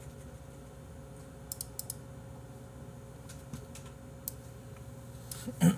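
Scattered faint clicks of a computer keyboard and mouse over a low steady room hum, with a brief louder vocal sound right at the end.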